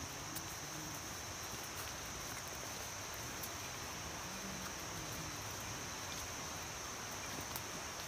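Rainforest insects buzzing in one steady high-pitched drone, over a soft hiss of leaves and a few faint scattered ticks.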